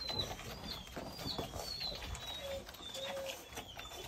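A litter of German shorthaired pointer puppies suckling at their mother: short high squeaks about twice a second, a few lower drawn-out whimpers, and soft wet suckling clicks.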